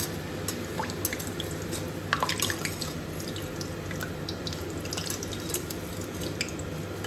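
Hot oil dripping and crackling as fried crinkle-cut fries are lifted and drained in a wire spider strainer over a steel pot of frying oil, with a steady low hum underneath. A cluster of louder clicks comes about two seconds in.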